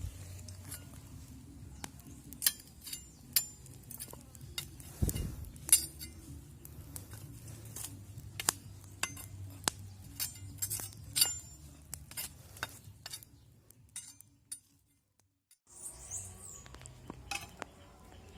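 Metal utensils clinking and tapping against cookware in irregular sharp clicks, about one to three a second, with a short break about three-quarters of the way through.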